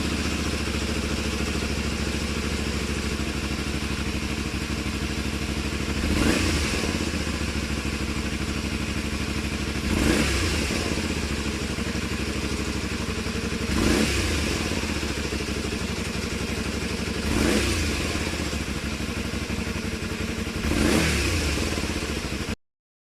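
Honda VT250F's V-twin engine idling and exhaust running, blipped five times with short revs that rise and drop straight back to idle. The sound cuts off abruptly near the end.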